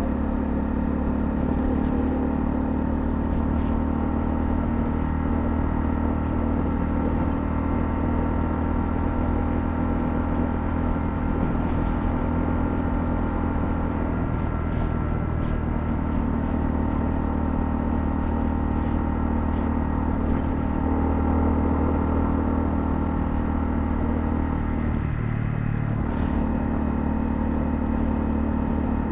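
Honda CL250 single-cylinder engine running steadily while the motorcycle is ridden. About 25 seconds in, the engine note briefly dips and settles at a different pitch.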